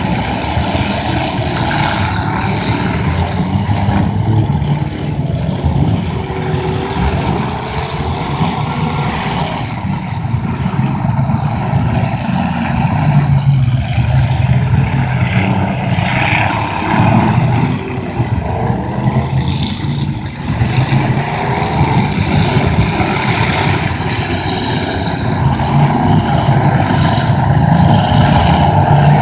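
Several full-size demolition derby cars' engines revving hard together, pitch rising and falling as the drivers rev, with occasional sharp crashes of the cars' bodies smashing into each other.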